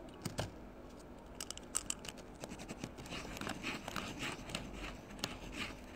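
Faint scratching and clicking handling noises close to the microphone, with a run of short rustling scrapes from about halfway in.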